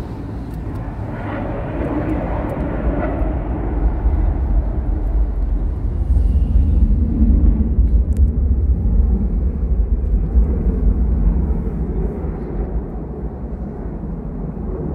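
Low, steady rumble of a car driving slowly, heard from inside the cabin. It grows louder through the middle and eases off near the end as the car slows.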